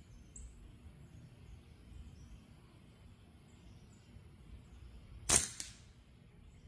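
A single rifle shot about five seconds in, sharp and brief with a short tail and a smaller click just after it, fired at a paper target.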